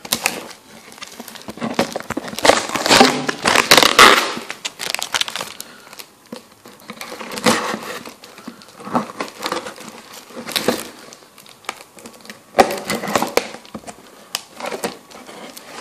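Packaging being torn and crinkled by hand as a cardboard shipping box is opened, in irregular bursts, loudest a few seconds in.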